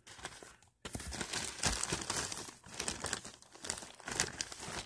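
Thin plastic bag crinkling and rustling as it is handled, with many sharp crackles and a short pause just under a second in.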